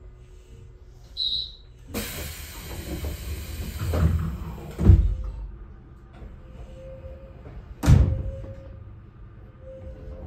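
Pneumatic sliding doors of a Tobu/Yagan 6050 series electric train closing: a hiss of air from about two seconds in, ending in a door thud about five seconds in, and a second sharp thud about eight seconds in.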